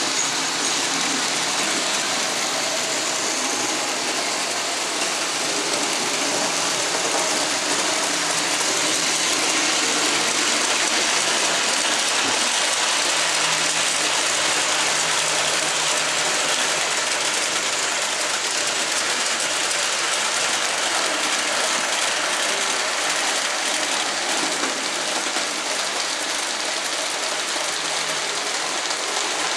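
Model railway locomotive running steadily while hauling a long train of wagons, its electric motor and gears whirring and the wheels rattling over the track with a continuous hissing clatter.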